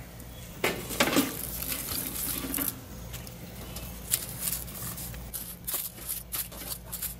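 Metal tongs clicking and scraping as husk-on ears of grilled corn are lifted off the grill and set down on a metal baking sheet, with dry husks rustling. The short clicks and knocks come scattered and grow more frequent in the second half.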